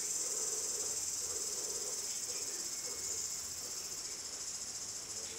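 Insects chirring steadily at a high pitch, with a fine fast pulse.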